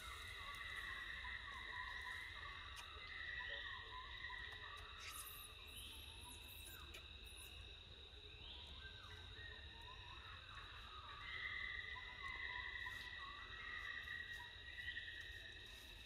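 Insects droning outdoors: a steady high whine with rising calls that come back every two to three seconds.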